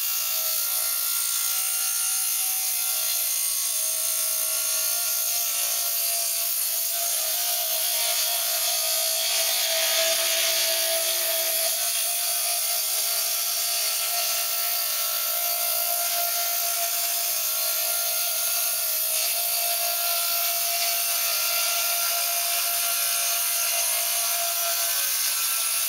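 Homemade mobile sawmill's electric-motor-driven circular saw blade ripping lengthwise through a log: a steady whine under the constant rasp of the cut.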